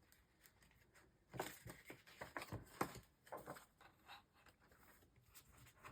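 Quiet rustling and light taps of paper planner inserts being handled, mostly a scatter of short sounds a second or two in, with a few fainter ones later.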